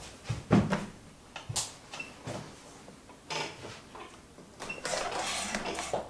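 Handling noises of a computer monitor being moved: a few scattered light knocks and clicks, then a longer rubbing scrape near the end.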